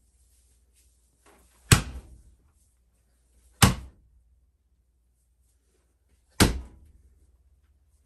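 Wet skein of freshly washed handspun yarn slapped hard against a wooden plank wall three times, a couple of seconds apart, each a sharp smack that dies away quickly. This is thwacking, the finishing step that sets the yarn's twist.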